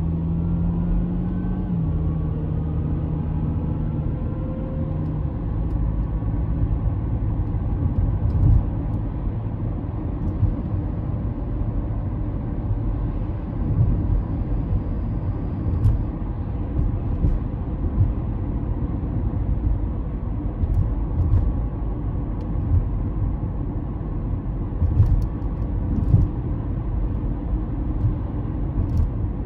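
Honda CR-V driving: a steady low rumble of engine and road noise. A steady engine hum steps down in pitch about two seconds in and fades out by about five seconds.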